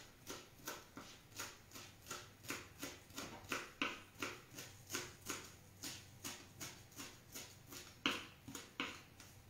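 Kitchen knife chopping fresh parsley on a wooden board, in steady strokes about three a second, with two sharper knocks near the end.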